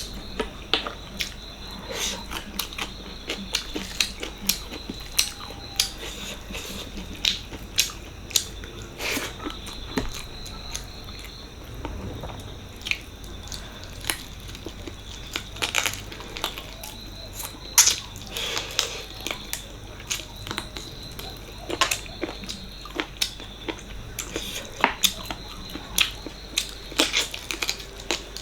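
Close-up eating sounds of mutton paya curry with rice: wet chewing and many sharp, irregular mouth clicks and smacks.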